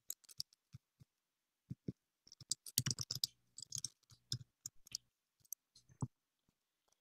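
Typing on a computer keyboard: irregular key clicks that come in a quick run about two to four seconds in, heard through a video call's microphone.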